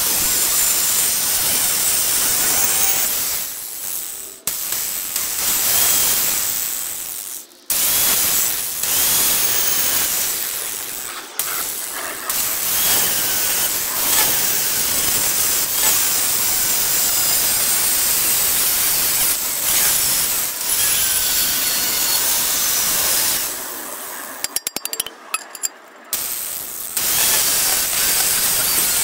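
Porter-Cable angle grinder cutting through a steel lawnmower blade: a steady, loud grinding whine, cutting out briefly a few times as the grinder comes off the steel, with a longer lull a little before the end.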